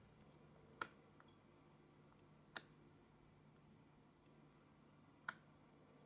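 Small magnet balls snapping together: three sharp single clicks, one to three seconds apart.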